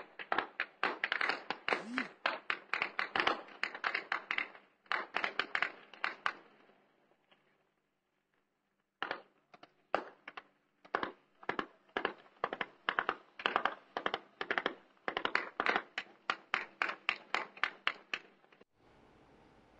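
Heavy gunfire: shot after shot in quick succession, several a second, with a break of about two and a half seconds near the middle before the shooting resumes.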